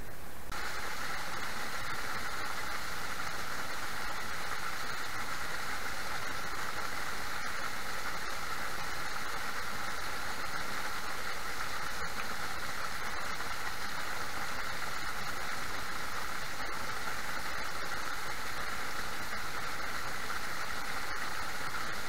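Small waterfall pouring onto river rocks close by: a steady, even rush of splashing water that cuts in about half a second in.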